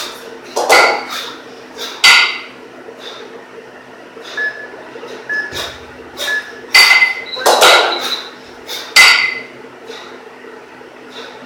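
Two 12 kg kettlebells clanking against each other in the rack position during a two-arm long cycle set. There is a series of sharp metallic clanks, about five of them loud, and some leave a brief ring.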